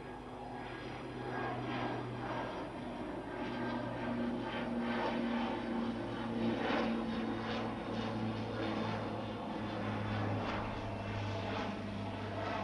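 Aircraft engines running as a plane passes, with a steady low hum; the sound swells slowly, is loudest a little past the middle, then eases off.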